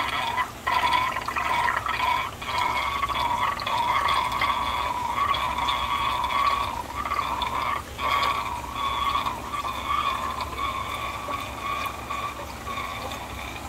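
Water running steadily into an aquarium tank, with a short break about eight seconds in.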